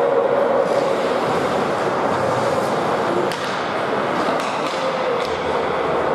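Ice rink during a hockey game: steady noise of skates on the ice and distant voices, with several sharp clacks between about two and a half and five seconds in.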